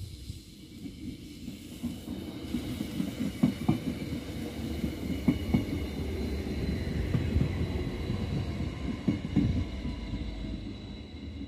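Arriva Stadler GTW diesel multiple unit passing through a station: a low rumble that builds and then fades, with pairs of sharp clicks as its wheelsets cross rail joints, over a steady high whine.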